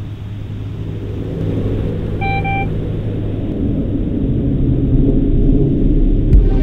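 A steady low rumble that builds in loudness, with a short beeping tone about two seconds in and a single low thump near the end.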